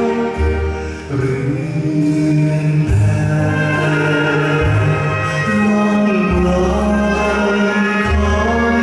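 A man singing a Thai song into a handheld stage microphone over instrumental accompaniment with sustained chords and a changing bass line.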